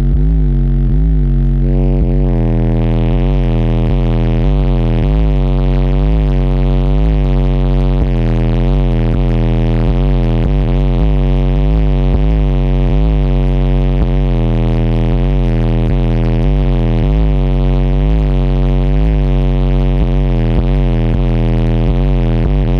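Very loud bass-heavy electronic music played through the car's four 15-inch Pride UFO subwoofers and Pride 25K amplifier, heard from inside the cabin. A deep, steady bass tone runs under a pulsing wobble that repeats about one and a half times a second.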